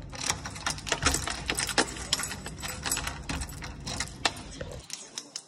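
Keys on a keychain jangling and clicking as a key is worked in a door lock: a quick, irregular run of small metallic clicks that dies away near the end.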